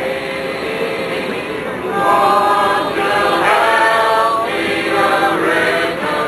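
A small group of voices singing together in held phrases, with short breaks between lines.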